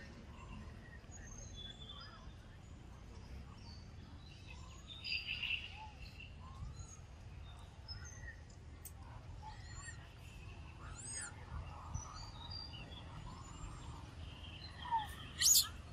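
Outdoor tree-canopy ambience: scattered short bird chirps and whistles over a low steady background rumble, with a loud, sharp high call near the end.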